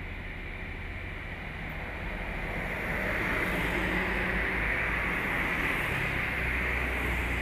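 Heavy diesel trucks running by on the road: a low engine rumble with tyre and road noise that builds over the first three seconds, then holds steady as a cargo truck passes close by.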